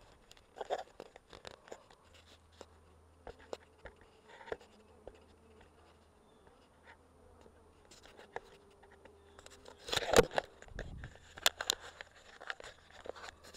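Honeybees buzzing over an open hive's frames, with scattered clicks and scrapes of handling and a louder clatter about ten seconds in.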